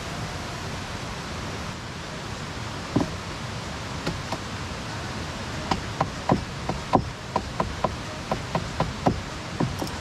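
A run of sharp knocks, about two to three a second, over a steady rushing noise, with a single knock about three seconds in before the run starts.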